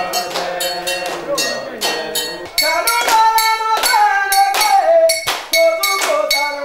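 Voices singing a chant over a steady beat of sharp, ringing metal percussion strikes, about two to three a second. The singing grows louder about two and a half seconds in.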